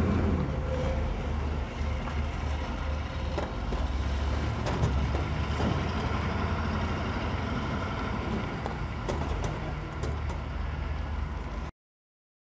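Military vehicle engines running, a steady low rumble with a few faint clicks, cutting off suddenly near the end.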